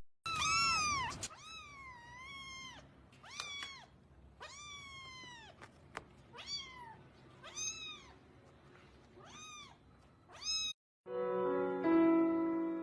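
A kitten meowing again and again: about ten separate high-pitched meows, each falling in pitch, some short and some drawn out. Music comes in near the end.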